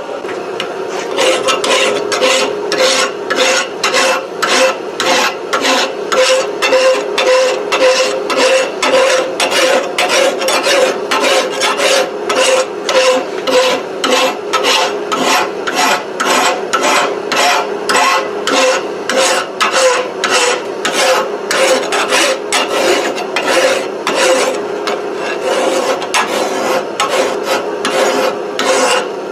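Farrier's file rasping back and forth over a 4140 tool-steel round punch in steady, even strokes, about two a second, knocking off the high ridges left after hammer finishing.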